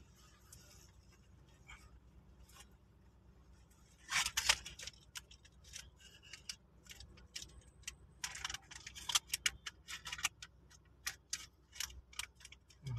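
Irregular clicks and taps close to the microphone, starting about four seconds in and coming in scattered clusters, over a low steady hum.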